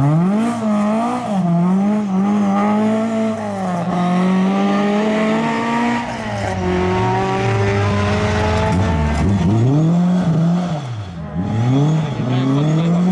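Ford Escort rally car's engine driven hard, its pitch climbing and dropping back again and again through the gear changes, with a long climb in the middle and several quick drops and rises near the end.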